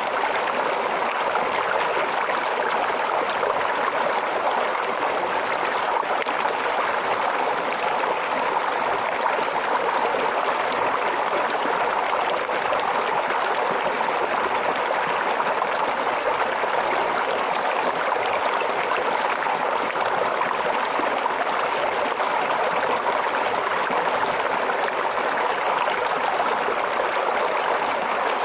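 Flowing water trickling and babbling steadily, like a small stream.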